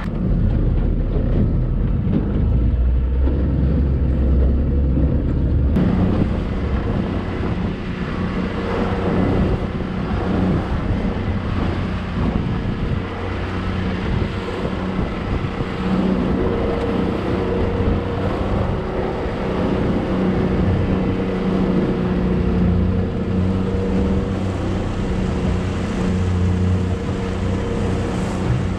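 Motorboat underway: its engine runs steadily with a constant hum, while water rushes past the hull. Wind buffets the microphone, heaviest in the first few seconds.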